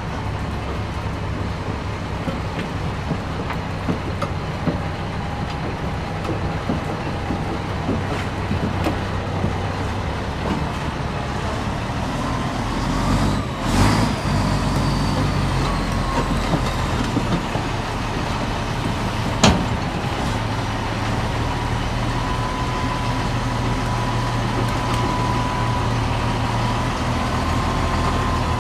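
A heavy diesel machine's engine running steadily under load, with a thin wavering whine over it, a louder surge about halfway through and one sharp metallic knock a few seconds later.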